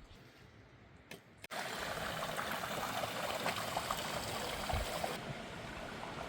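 Very quiet at first, then about a second and a half in, running water cuts in abruptly and runs steadily as a trickling, splashing stream.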